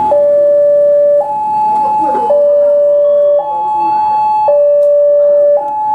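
Railway level-crossing warning alarm sounding from the crossing mast's loudspeakers with the barrier down, warning that a train is coming. It is an electronic two-tone signal that alternates between a lower and a higher tone, each held about a second.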